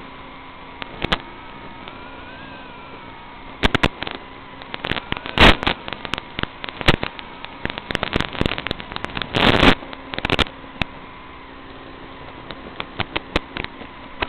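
Steady hiss on the audio track of an FPV quadcopter's analog video-link recording, broken by scattered sharp crackles and two louder bursts of crackle, about five and a half and nine and a half seconds in.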